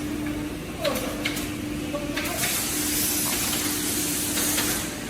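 Machine noise: a steady hum with a couple of sharp clicks about a second in, then a spell of loud hissing air lasting about two and a half seconds.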